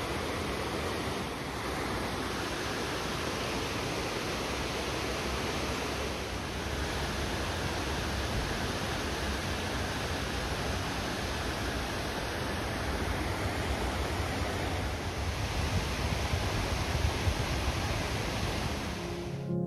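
Mountain stream rushing over and between boulders: a steady, even rush of water.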